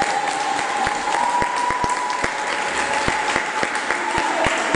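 A small congregation clapping after a baptism by immersion, the separate claps easy to pick out rather than merging into a roar. A long steady high note runs over the clapping and stops near the end.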